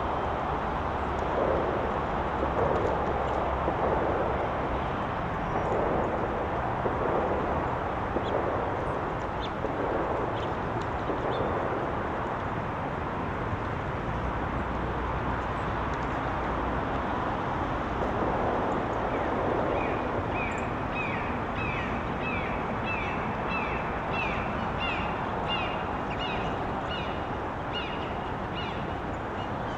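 Outdoor backyard ambience with a steady background hiss and rumble. About two-thirds of the way in, a songbird starts repeating a short, high, down-slurred call note about twice a second, the notes creeping slightly higher in pitch.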